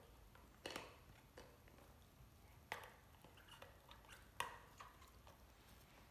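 A Great Dane puppy gnawing on the handle of a hard plastic Jolly Ball, heard as faint, scattered clicks and taps of teeth on plastic. The sharpest click comes a little past the middle.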